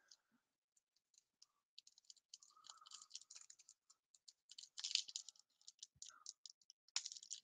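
Foil trading-card pack being torn open and crinkled by hand: a faint run of quick, irregular crackles, loudest about five seconds in and again near the end.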